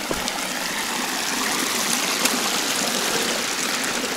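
West Fork of Oak Creek flowing over rocks at a stream crossing, a steady rushing of water that grows a little louder partway through.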